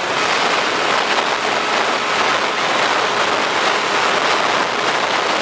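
Wind noise rushing over the microphone of a motorcycle ridden at highway speed in a windstorm: a loud, steady hiss with no break.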